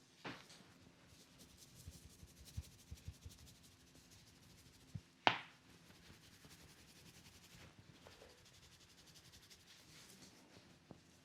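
Hands rubbing and patting a person's scalp in a head massage. Soft low pats come around two to three seconds in, and a single sharp crack about five seconds in is the loudest sound.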